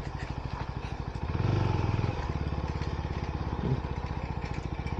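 Vehicle engine running with a steady, even pulsing beat, getting louder for about a second around a second and a half in, then settling back.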